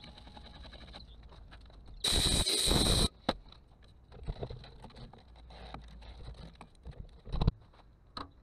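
Small scrapes and knocks of a hand clearing wood shavings out of a hollowed ash vessel on a stopped lathe. About two seconds in, a loud hissing rush lasts about a second, and there is a short thump near the end.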